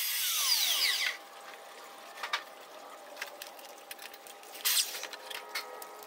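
Electric drill whirring, then spinning down with a falling whine over about the first second. After that, a few light clicks and a small knock of tools and wood being handled.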